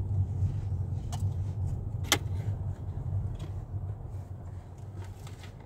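Low road and engine rumble of a moving car heard from inside the cabin, slowly fading. There are two sharp clicks, one about a second in and a louder one about two seconds in.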